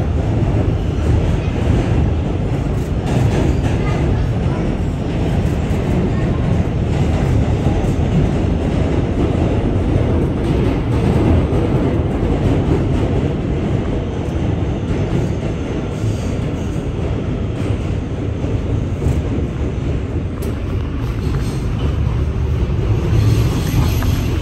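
Kawasaki R211T subway car running between stations, heard from inside the car: a steady, loud rumble of the wheels on the track.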